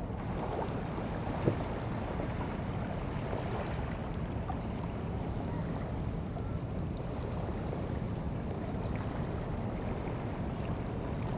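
Wind on the microphone over washing seawater, with a steady low rumble and one short knock about a second and a half in.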